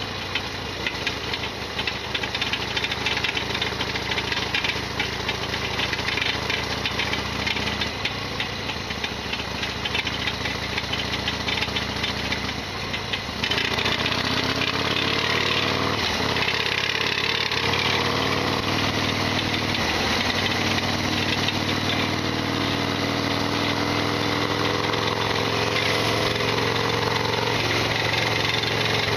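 Harley-Davidson Sportster XL1200R's air-cooled V-twin running with the loud rattling mechanical noise its owner complains of. About halfway through it gets louder and its pitch climbs as it accelerates.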